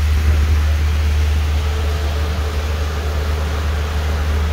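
Parking-lot tram running, heard from aboard: a steady low rumble with an even hiss over it and a faint whine.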